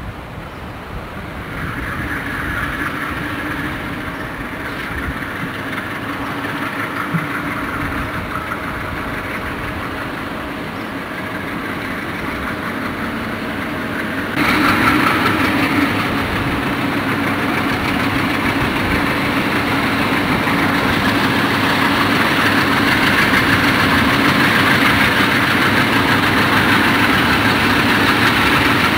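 Diesel-electric freight locomotives running as they haul a train of hopper cars, a steady engine sound that grows louder as they come closer. About halfway through it jumps abruptly in loudness.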